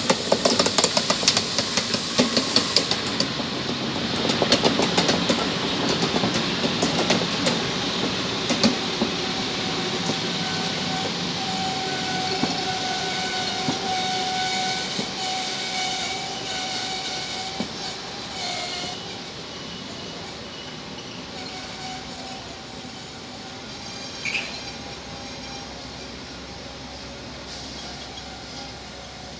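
Electric train on the Rhaetian Railway moving through the station. Rapid wheel clatter over rail joints comes first, then a steady whine of the traction equipment that grows louder through the middle and eases near the end.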